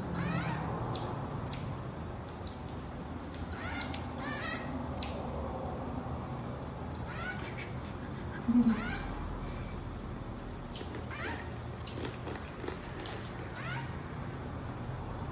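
Common marmoset giving short, very high-pitched chirps every second or two while it eats, with small clicks in between.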